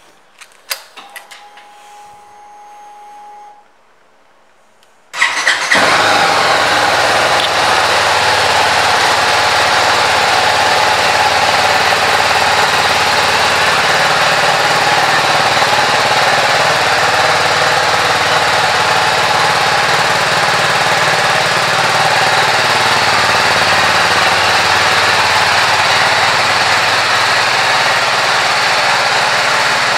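BMW G 310 R motorcycle's 313 cc single-cylinder engine started about five seconds in, after a few faint clicks, then idling steadily.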